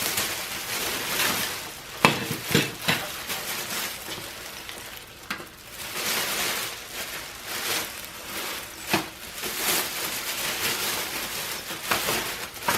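Thin plastic fumigation bag crinkling and rustling as corded power tools are pushed into it, with a few sharp knocks of the tools against each other.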